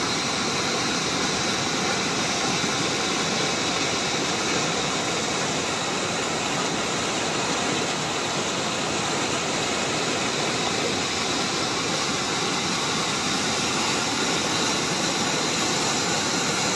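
Floodwater rushing steadily: a stream swollen by heavy rain in the hills, running over its banks in a constant, even rush.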